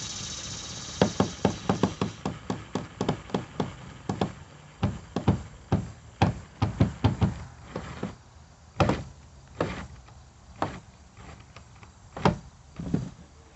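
Light knocks and taps from hand work on the kayak's screws and fittings: a quick run of about three a second for several seconds, then a few spaced knocks.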